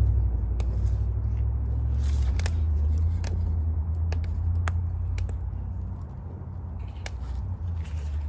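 Wood fire under a karahi of heating oil crackling, with sharp scattered pops about one or two a second, over a steady low rumble.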